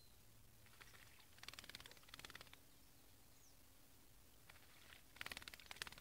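Small black bird bathing in a shallow metal tray of water, fluttering its wings in the water in two faint, rapid bouts of splashing about a second long each, one about a second and a half in and one near the end. A faint short bird chirp is heard now and then.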